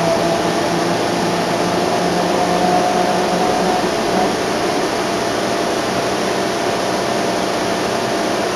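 Cabin noise of a 2010 NABI 31-LFW transit bus with a Cummins L Gas CNG engine and ZF transmission, under way: a steady engine and road rumble with a faint high whine that fades about halfway through.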